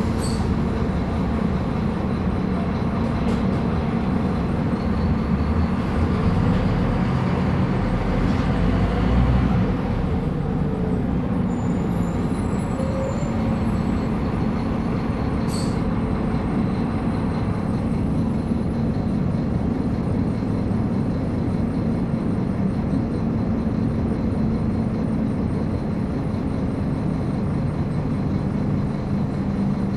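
Scania K310UB bus engine running steadily as the bus drives, with a louder, deeper stretch about six to ten seconds in, then an even drone.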